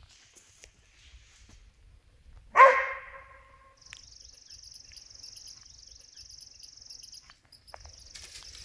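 A dog gives one loud bark about two and a half seconds in. Insects then buzz steadily at a high pitch, with a short break near the end.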